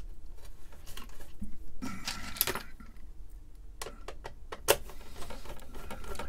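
A screw being turned in by hand to mount a replacement power supply in a computer's metal chassis: small clicks and scrapes of the screw and metal parts, a busier patch of scraping about two seconds in and a sharp click near the end.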